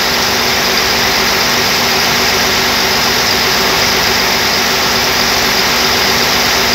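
Turbocharged engine running steadily at about 960 rpm: a loud, even machinery noise with a few steady tones and no change in speed.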